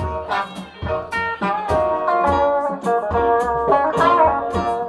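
Live blues band playing, a hollow-body electric archtop guitar to the fore over double bass and drums, with regular cymbal strikes.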